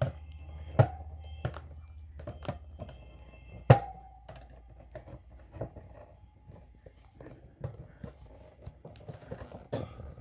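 Scattered clicks and knocks from a pet carrier with a young parrot inside being handled, the sharpest about a second in and near four seconds, over a low steady hum.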